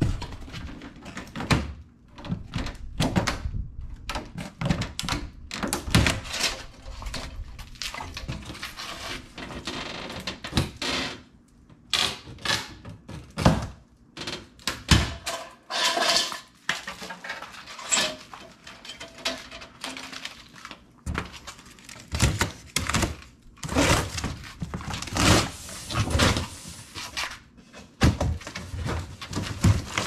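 Plastic strapping bands cut with snips and pulled off a long cardboard shipping box, then the box's cardboard flaps pried open and folded back: a run of sharp snaps and thunks mixed with cardboard rustling and scraping.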